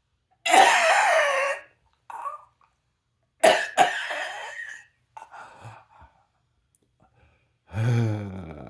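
A man coughing in about five separate bouts with short silences between, the last near the end voiced and falling in pitch; the cough is reportedly psychogenic (a nervous, non-organic cough).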